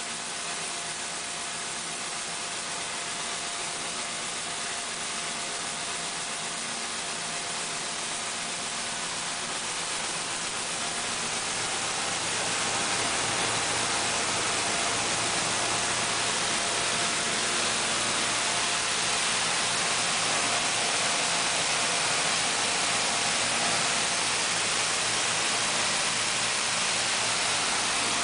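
Self-service rice milling machine running as milled white rice pours into its outlet bin: a steady rushing noise with a thin steady tone and a low hum. It grows louder about twelve seconds in.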